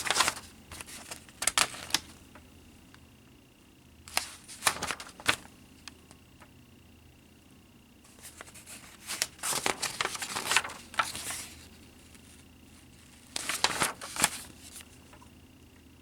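Paper pages of a plastic model kit's instruction booklet being turned and handled, rustling in several short bursts with quiet gaps between.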